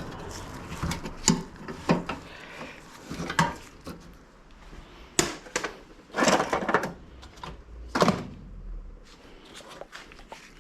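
Hand tools knocking and clanking on metal in irregular bursts, with a few longer scraping rattles, as work goes on at the van's front end.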